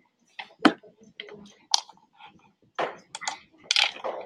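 Irregular clicks and taps, a dozen or so at uneven spacing, the loudest about two-thirds of a second in.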